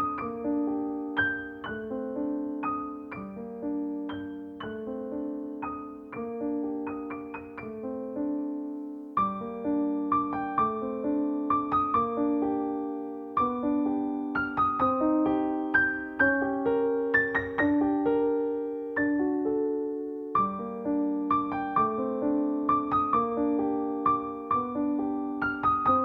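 Soft solo piano music, a steady flowing pattern of notes.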